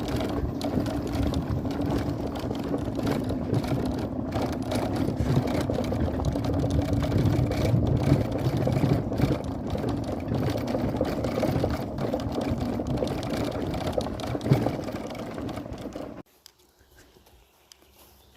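A vehicle's engine and road noise while driving, a steady hum with a low rumble. It cuts off abruptly about 16 seconds in.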